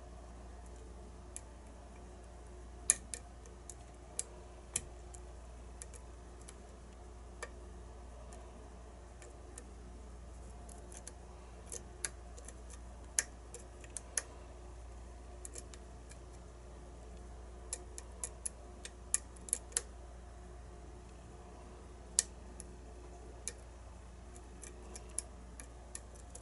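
Sharp metallic clicks of a lock pick working the pins inside a lock cylinder, scattered irregularly, a few close together in places, over a faint steady hum.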